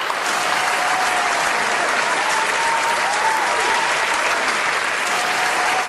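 An audience applauding, a dense steady clapping that starts and cuts off abruptly at edits.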